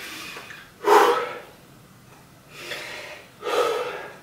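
A man breathing hard after an exercise set, out of breath from the effort: three heavy breaths, the first, about a second in, the loudest.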